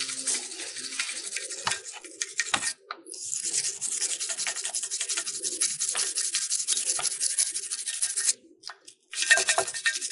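Rapid scrubbing strokes of a brush against a car's six-piston front brake caliper, cleaning off brake dust with soapy water. It comes in three spells, with short pauses about 3 and 8 seconds in.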